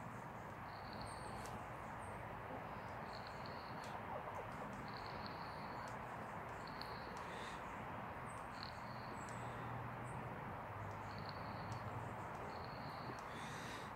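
Short, high-pitched bird peeps repeating irregularly every second or two over a faint, steady hiss.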